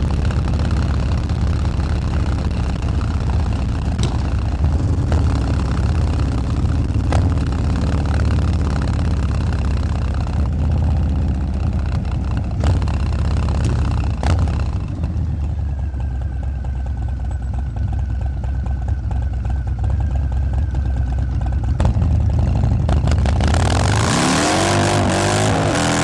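Harley-Davidson Fat Boy's 131 ci (2147 cc) Stage 4 V-twin running at a steady low idle through a Bassani 2-into-1 exhaust, then revving up sharply near the end.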